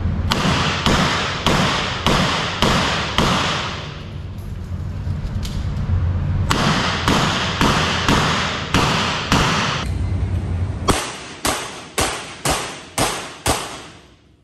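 Revolver shots fired in rapid strings on an indoor range, about two a second, each echoing off the walls. Near the end comes a separate string of six shots about half a second apart.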